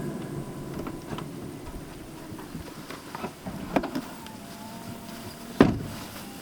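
A vehicle engine's idle dies away, followed by a few light clicks and knocks and one sharp, loud thump about five and a half seconds in.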